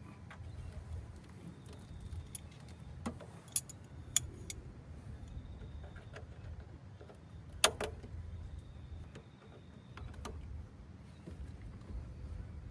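Scattered sharp metallic clinks and knocks of hand tools and metal parts in a car's engine bay as the intercooler is unbolted and lifted out, the loudest a little past halfway, over a low steady rumble.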